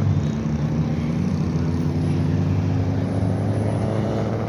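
A car engine running steadily at low speed, a low rumble with a faint slow rise in pitch.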